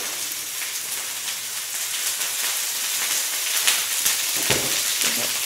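Sliced onions, cabbage and red bell peppers sizzling in oil on a round electric grill pan: a steady crackling hiss, with a low thump about four and a half seconds in.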